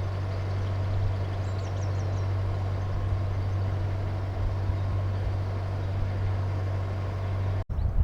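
A heavy diesel engine idling steadily, a constant low hum, with faint bird chirps above it.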